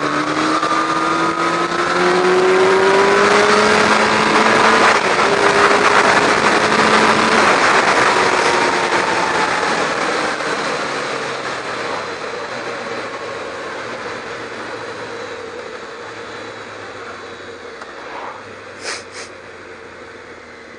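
Kawasaki ZX-12R's inline-four engine revving up under hard acceleration, its pitch rising over the first few seconds, then loud wind rush on the microphone that fades away as the bike eases off. Two brief clicks near the end.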